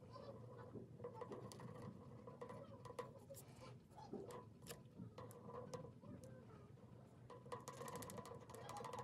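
Near silence, with faint scratches and small taps of a black marker drawing short strokes and dots on paper.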